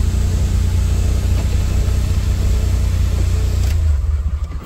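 Car cabin noise while driving: a steady low engine and road rumble with an even hiss over it. The hiss thins out a little before the end.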